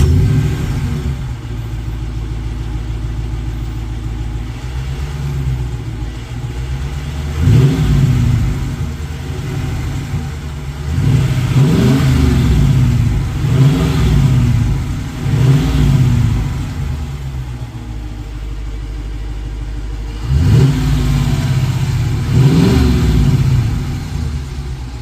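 Dodge Challenger R/T's 5.7-litre HEMI V8 idling and being revved in short blips about six times, each rise and fall in pitch clear above the idle. It is running with a freshly fitted K&N drop-in air filter, and the intake has more of a swooshing sound.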